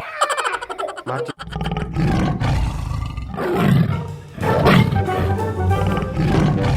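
A loud animal roar, like a big-cat sound effect, laid over background music.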